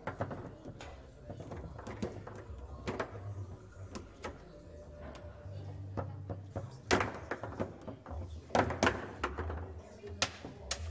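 Table football game in play: irregular sharp knocks and clacks of the ball being struck and trapped by the rod-mounted men and of rods banging against the table, loudest about seven and nine seconds in.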